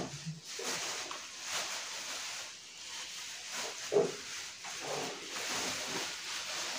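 Clear plastic packaging rustling and crinkling as it is handled and pulled from a cardboard box, with two short vocal sounds about four and five seconds in.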